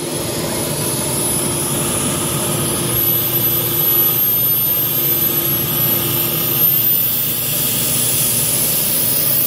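Nilfisk ES400XLP self-contained carpet extractor running as it is pushed over carpet, its vacuum motor giving a loud, steady rush with a thin high whine that creeps up in pitch.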